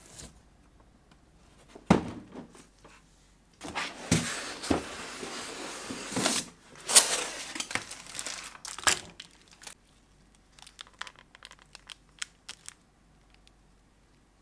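Clear plastic wrapping crinkling and rustling, loudest through the middle stretch, with a sharp knock about two seconds in and a few light clicks near the end.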